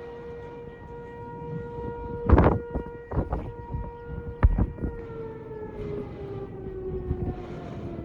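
Outdoor tornado warning siren sounding a steady tone that begins to fall slowly in pitch about five seconds in as the siren winds down. Several sharp thumps cut across it, the loudest about two seconds in.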